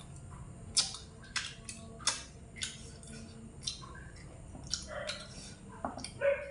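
Close-up chewing of fried pork ribs: wet mouth smacks and crisp clicks every half second to a second. A brief higher-pitched sound comes near the end.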